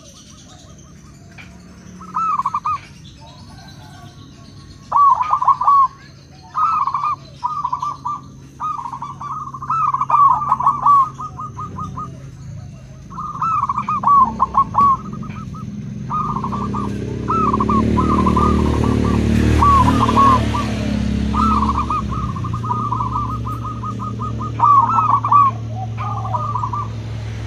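Zebra doves (perkutut) cooing: runs of quick, rolling coos repeated every second or two, with calls answering one another. About halfway through, a low rumble swells in the background and then eases off.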